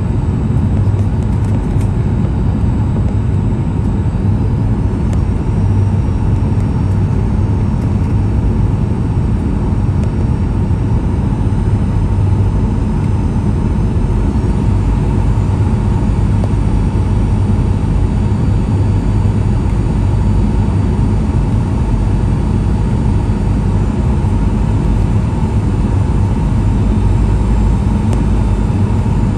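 Cabin noise inside a Boeing 737-800 on final approach: a steady, loud rumble of airflow and the CFM56-7B turbofan engines, with a constant hum and a faint high whine that shifts pitch briefly a couple of times.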